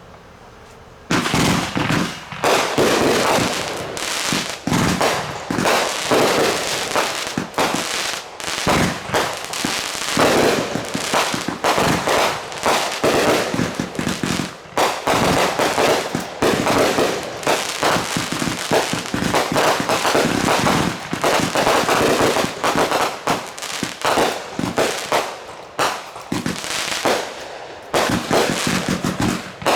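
Fireworks going off in a rapid, dense barrage of bangs and crackling that starts about a second in and keeps on with hardly a break, thinning briefly near the end.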